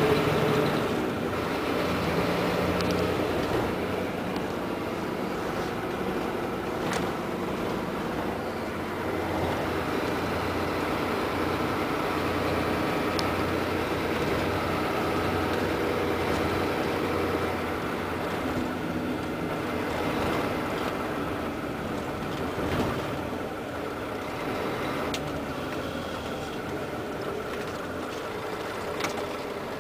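Volvo B12R coach's rear-mounted straight-six diesel running steadily, its low engine note shifting slightly in pitch and level, with a few faint clicks.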